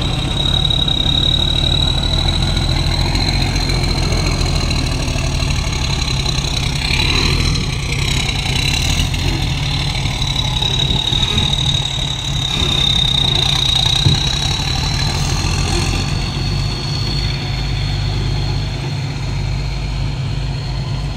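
Heavy diesel engine running steadily with a low rumble, and a steady high-pitched whine over it.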